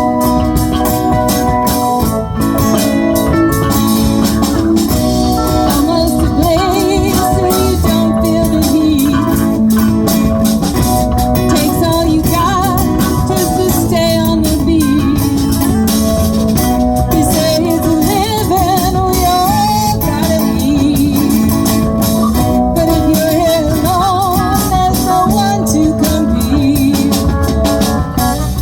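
Live rock band playing, with a wavering lead melody over a steady beat.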